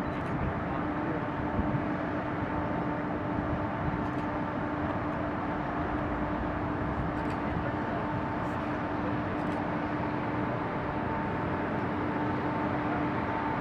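Steady engine noise with a constant low hum and a fainter higher tone over it, holding level throughout.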